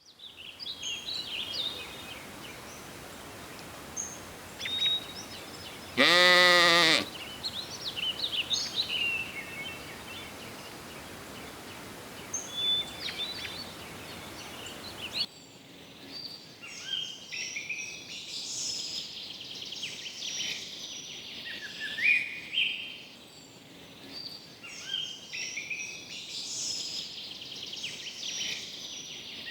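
A lamb bleats once, loudly, about six seconds in, over scattered birdsong. About halfway through the background changes abruptly, and busy birdsong with repeated falling phrases takes over.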